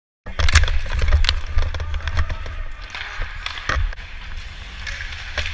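Hockey skates scraping and carving on rink ice, with a heavy low rumble from the moving body-worn camera and scattered sharp clacks.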